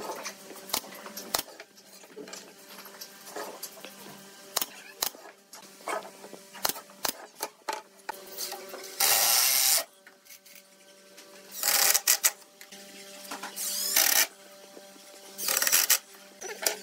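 Wooden strips knocking and clattering on a workbench as they are handled, with four short, loud bursts of a power tool fastening the frame, each under a second long.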